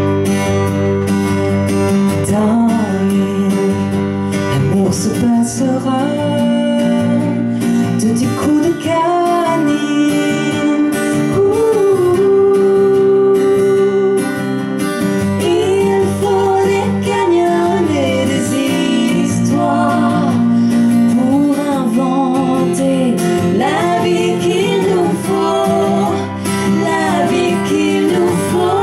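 Live folk-pop song: two women's voices singing over strummed acoustic guitar and electric guitar.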